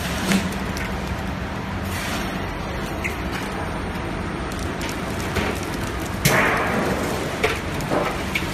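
Cereal ball moulding machine running: a steady motor hum and even mechanical noise, with a few sharp clacks, the loudest about six seconds in.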